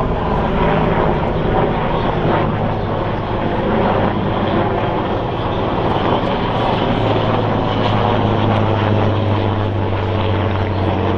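Military aircraft engine noise: a loud, steady drone with a low hum that grows stronger about seven seconds in.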